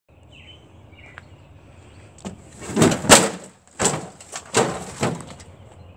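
A series of about six heavy knocks and thumps as a smashed CRT television's plastic cabinet tumbles over on the ground, the loudest about three seconds in.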